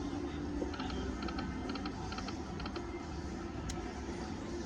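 Happy Lantern Lightning Link video slot machine spinning its reels: clusters of quick electronic ticks repeating over steady casino background noise.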